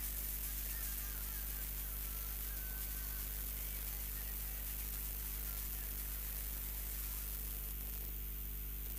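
Steady electrical mains hum and buzz with a background hiss, with faint wavering music-like tones in the first three seconds.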